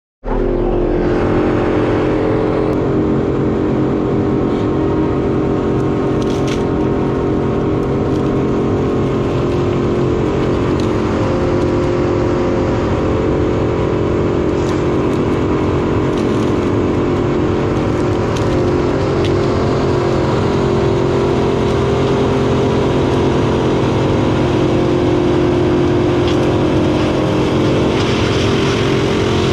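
Diesel engine of heavy land-clearing equipment running steadily at a constant working speed, with a few faint knocks now and then.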